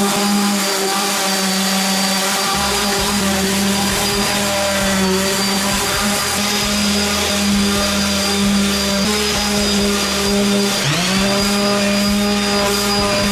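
Wood router spinning steadily on a router sled, flattening a board of pine slices set in epoxy. About eleven seconds in, its pitch drops briefly and then comes back up.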